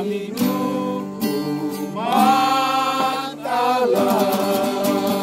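Men's voices singing long held notes of a hymn over a strummed acoustic guitar; the guitar strumming comes through more clearly in the last second.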